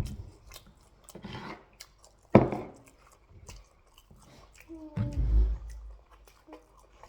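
A person chewing a mouthful of jollof rice and turkey close to the microphone, with wet mouth clicks and smacks. A sharp, louder bite or smack comes about two and a half seconds in, and a short hum-like mouth sound comes about five seconds in.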